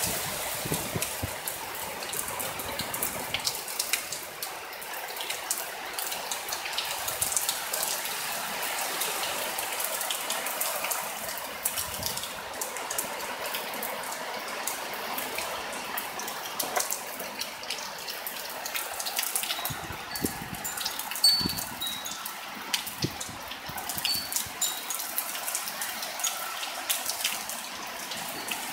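Heavy thunderstorm rain pouring down in a steady hiss, with many sharp drips and splats close by.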